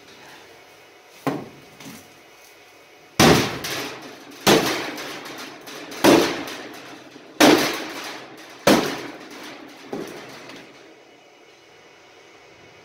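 Hammer blows on the steel body of a Newmac wood stove: two light knocks, then five heavy strikes about a second and a quarter apart, each ringing briefly, and a last lighter one. The warped, separating seam of the firebox is being hammered back into place.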